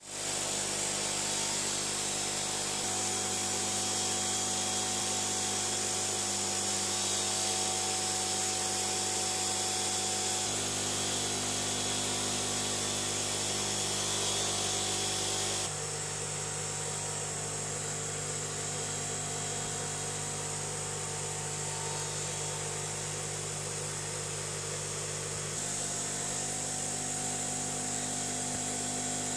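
Aquarium air pumps buzzing steadily, several fixed tones together, over a bright hiss of air bubbling through sponge filters. The mix of tones shifts abruptly a few times.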